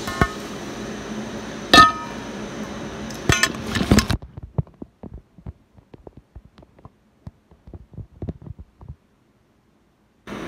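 Knocks and clinks of something being handled on a tabletop over a steady hiss, the loudest a little under two seconds in. About four seconds in the hiss drops out, leaving scattered faint clicks, then about a second of dead silence near the end.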